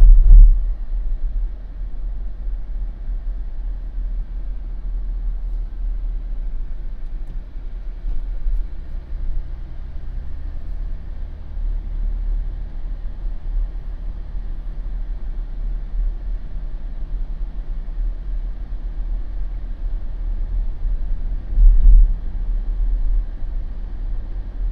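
Jeep driving on a residential street: a steady low rumble of tyres and engine, with two heavy low thumps, one right at the start and one about 22 seconds in.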